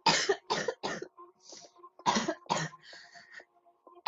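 A girl coughing in a fit: three coughs in quick succession at the start, then two more about two seconds in, with weaker coughs between.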